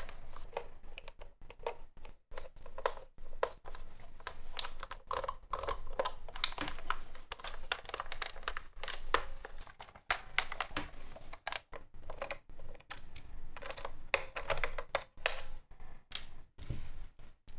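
A small screwdriver working screws out of a plastic toy belt's back plate: irregular light clicks, taps and scrapes of metal on plastic.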